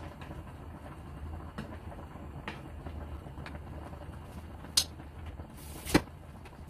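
A metal ladle clinking lightly against a pot while skimming boiling fish-head soup, over a low steady hum. Near the end comes one sharp, loud clack as the glass pot lid is set down.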